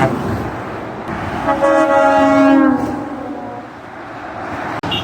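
Truck air horn sounding a chord of several tones for about a second and a half, starting about a second and a half in, over the noise of passing traffic. Its pitch then slides down as the truck goes by.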